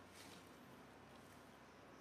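Near silence: faint background hiss, with one brief soft rustle just after the start.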